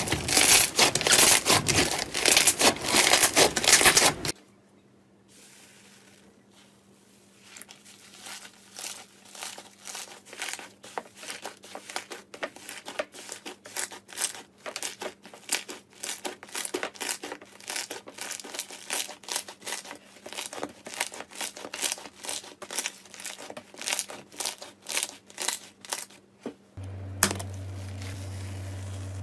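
Slime being squeezed and pressed by hand, making crackling, popping sounds: dense and loud for the first four seconds, then after a sudden cut quieter, separate pops that gradually grow busier. A steady low hum starts abruptly near the end.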